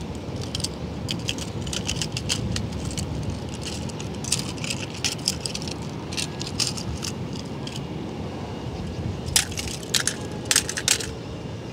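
Small toy cars clicking and clinking against each other as they are picked up and handled, with a cluster of louder clacks near the end as they are dropped into a plastic basket full of other toy cars. A low steady rumble lies underneath.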